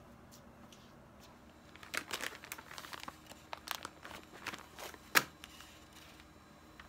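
Soft plastic wet-wipes pack crinkling as a wipe is pulled out through its flip-top opening, starting about two seconds in, with one sharp click just after five seconds, the loudest sound.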